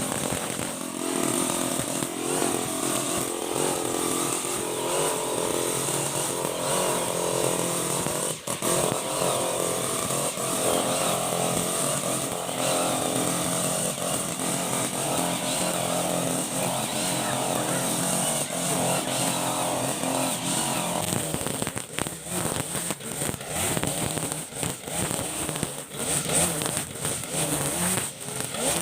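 Honda GX35 four-stroke brush cutter engine running hard at high revs. About two-thirds of the way through, its steady note breaks up and turns uneven.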